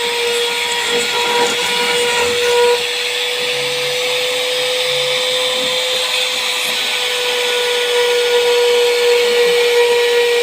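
Small CNC router spindle running with a steady high whine and a hiss over it while milling aluminium composite panel.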